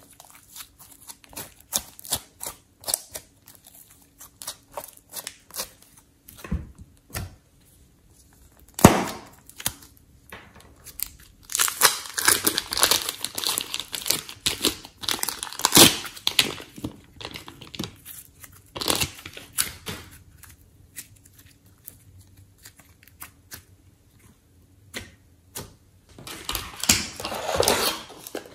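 Slime being squished and pressed between fingers, giving many short sticky clicks and pops. About halfway through comes a longer stretch of plastic crinkling as clay is squeezed out of a clear piping bag.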